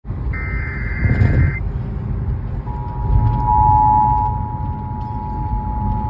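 Emergency Alert System broadcast playing over an FM car radio: a short burst of digital data-header tones. From a little under three seconds in comes the steady two-tone attention signal, with low car rumble underneath.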